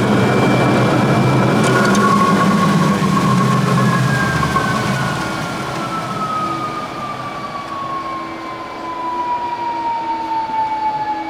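Timesaver wet abrasive belt finishing grinder running, then shutting down as its door safety switch cuts power. The low hum stops about five seconds in, and a motor's whine slowly falls in pitch as it spins down.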